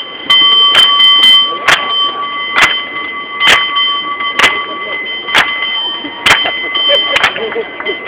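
Cable car bell rung in a steady rhythm: loud clangs a little under a second apart, with lighter taps in between, and the bell ringing on between strikes.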